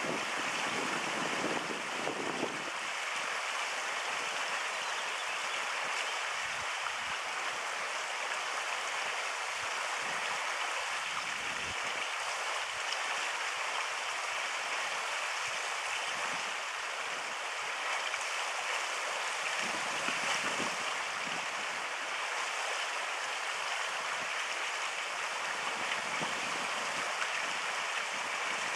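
Fast-flowing stream water rushing steadily, with a low rumble in the first couple of seconds.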